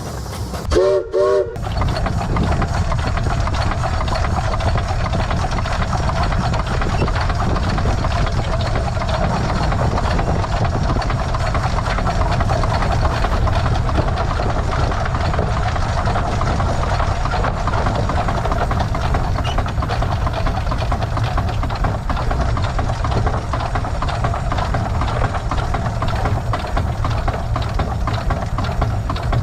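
Case 150 hp steam traction engine: its steam whistle gives a brief toot in about three quick pulses about a second in. After that the engine runs steadily with a fast, even beat.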